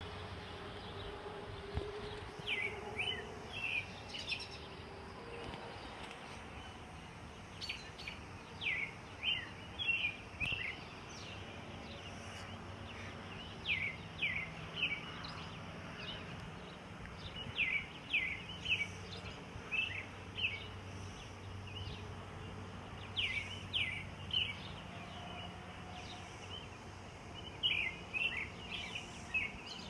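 Birds chirping: short bursts of quick, falling chirps that come in clusters every few seconds, over a steady low background hum.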